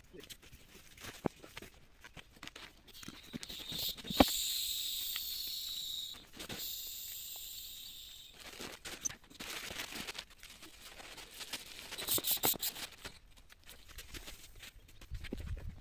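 Air hissing out of an inflatable sleeping pad as it is pressed flat, in two rushes that fade, the first starting with a sharp knock about four seconds in and the second about six and a half seconds in. Around them comes the rustle and crinkle of nylon fabric and stuff sacks being handled, with a quick flurry of rustles near twelve seconds.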